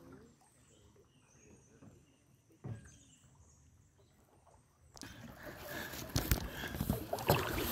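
Quiet outdoor ambience with a single knock about three seconds in. From about five seconds, louder noise with scattered knocks and clicks: canoes being paddled on the river, paddles and hulls knocking.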